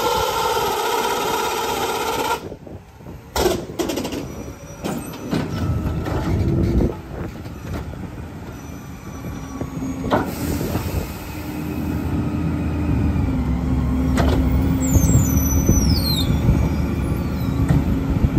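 Rear-loader garbage truck: the packer hydraulics whine with a steady tone while the blade cycles, then cut off sharply about two seconds in. A few clanks and knocks follow. The diesel engine's low rumble then builds and holds as the truck pulls away, with brief high squeals near the end.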